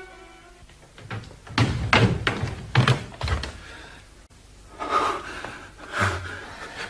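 Several irregular wooden thuds and knocks in a small room, a radio-drama sound effect, after a short string-music cue fades out at the start.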